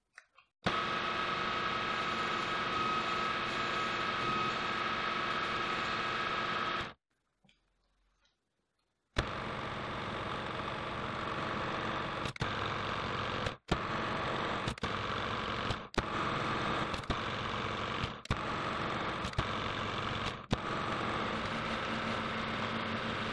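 Metal lathe running under power while single-point cutting a left-hand thread on a steel rod, a steady machine sound with a steady whine in it. It stops for about two seconds, then runs again, broken about once a second by short clicks and dropouts.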